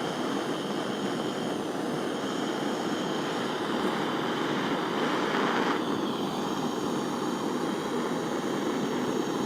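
Gas soldering torch flame hissing steadily, with a louder stretch in the middle that cuts off suddenly about six seconds in.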